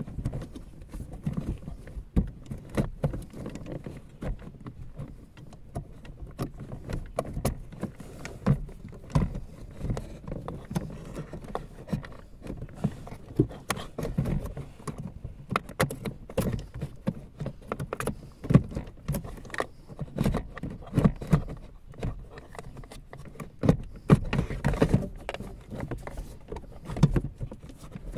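Irregular knocks, taps and scraping as a hand works on the plastic parts behind the dashboard around the cabin blower fan, with no steady rhythm.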